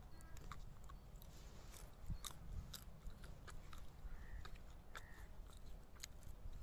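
Mustard plant stalks crackling and rustling as someone pushes through the standing crop, a scatter of irregular sharp snaps over a steady low rumble.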